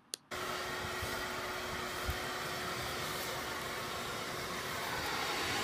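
Shop vacuum running steadily, its hose nozzle sucking at dandelion seed heads in the grass. It cuts in suddenly a moment after the start as an even rush of air, with a faint steady hum underneath.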